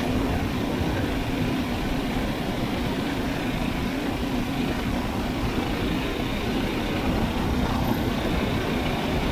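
Murray Kilowatt's 6.5 hp Tecumseh single-cylinder engine running at a steady speed under way, with its governor removed, over a dense low rumble.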